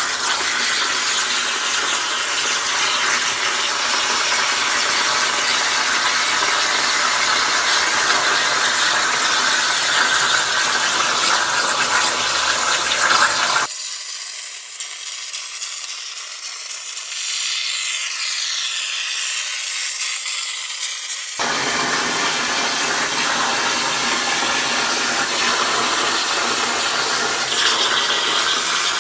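A CNC plasma cutter torch cutting 12-gauge steel sheet over a water table: the arc and air make a loud, steady hiss. Between about 14 and 21 seconds the sound thins out and drops a little.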